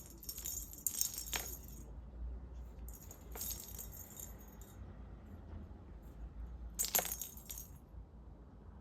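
Three short bursts of high-pitched jingling rattle with a few sharp clicks, over a low steady hum.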